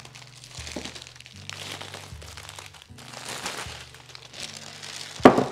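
Clear plastic wrap crinkling as it is pulled off a cardboard bangle box, with one sharp knock near the end.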